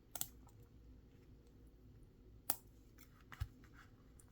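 A few faint, sharp clicks from a small Victorinox Classic SD pocketknife being handled, its metal tools clicking. The loudest click comes about halfway through.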